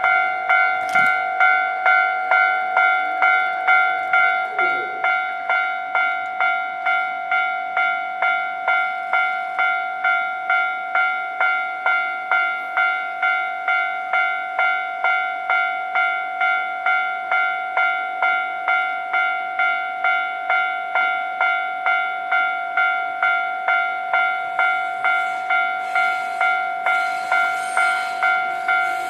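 Japanese railway level-crossing warning bell ringing in a steady, regular clang of about two strikes a second. Near the end the noise of an approaching train builds up under it.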